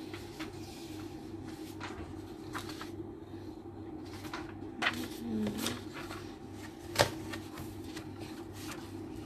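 Sheets of paper being handled and slid over one another on a wooden desk: soft rustles and light taps, with one sharp click about seven seconds in.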